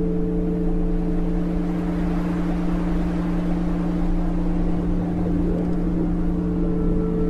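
Steady electronic drone of a subliminal audio track: a few low sustained tones held over a soft hiss, the highest of them dropping out for about a second past the middle.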